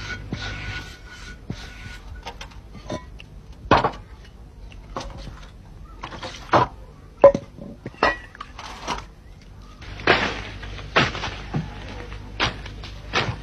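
Irregular sharp knocks and clatter of metal pots, a basin and a plate being handled and scrubbed. Near the end comes a rustling of leafy branches.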